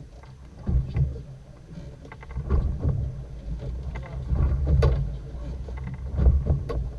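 Fishing boat noise: an uneven low rumble that swells and fades, with scattered knocks.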